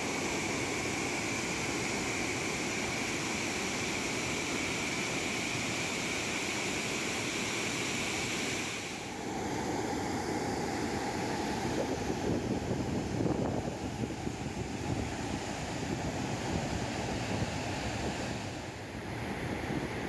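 Water pouring over a reservoir spillway, a steady loud rush of falling water. About nine seconds in the rush turns duller and more uneven.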